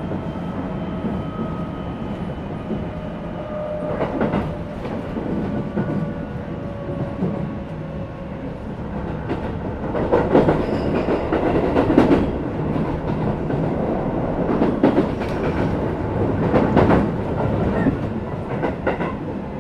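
Running sound inside a Keisei 3050 series electric train car with a Toyo IGBT VVVF inverter: a faint inverter whine slides slowly down in pitch over steady rolling rumble. In the second half, the wheels clatter and knock over rail joints in a series of louder knocks.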